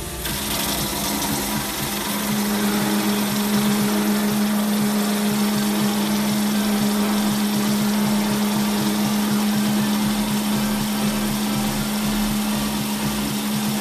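Electric motor of a woodworking power tool running steadily, with a strong even hum over a fast rattle.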